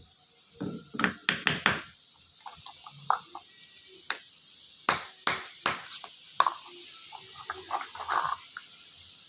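A series of irregular sharp taps and knocks of hard objects being handled, some with a brief ringing tone, in small clusters.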